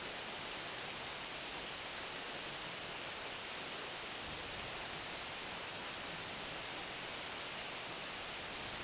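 Steady, even rainfall: a constant hiss of rain falling, with no single drops or gusts standing out.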